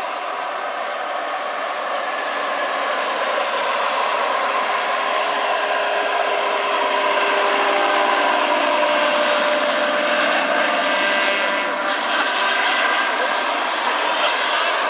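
Scale model Agusta A-109 helicopter with a PHT3 turbine engine flying past: the turbine runs with a steady whine over a rushing noise, growing louder over the first half as the model comes closer, with a brief dip near the end.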